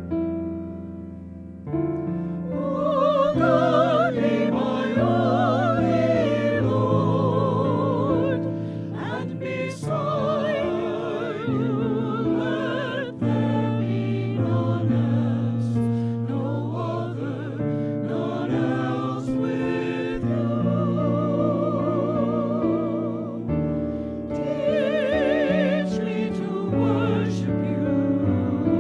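Small mixed church choir singing with electric keyboard accompaniment. The keyboard plays alone for about the first two seconds, then the voices come in.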